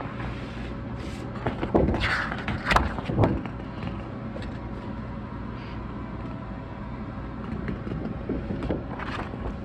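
Paper booklet being handled and its pages turned, with a few short rustles and crackles, about two seconds in and again near the end, over a steady low hum.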